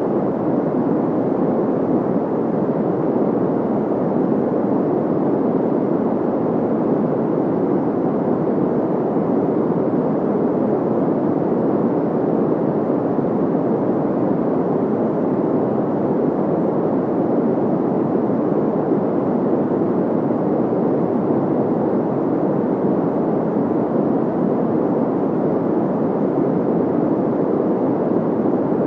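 Synthetic white-noise track: a steady, unchanging hiss, its energy mostly in the low-middle range with the highs rolled off, so it sounds dull rather than bright.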